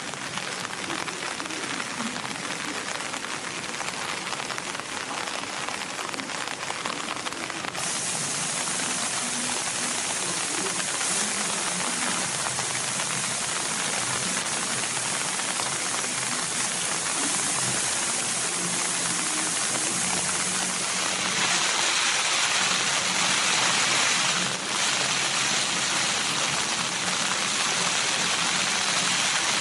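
Steady rain falling, an even hiss of drops. The sound turns abruptly brighter about eight seconds in and grows a little louder near the end.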